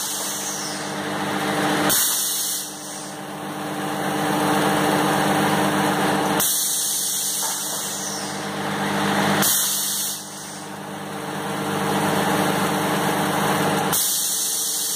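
Thermocol plate-forming machine running with a steady mechanical hum. A sudden hiss sets in four times, a few seconds apart, as the machine cycles through forming the foam sheet.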